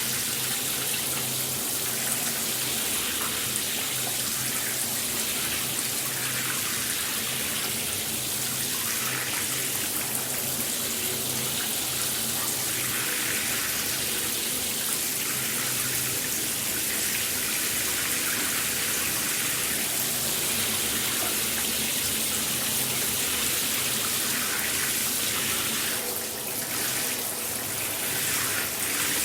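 Shower water spraying and splashing steadily, an even rushing hiss, with a slight change in the spray near the end.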